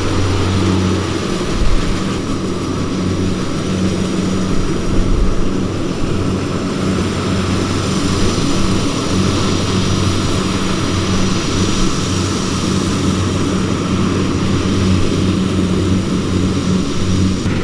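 Heavy farm machinery's diesel engine running steadily, with a constant low hum and the clatter of the working machine.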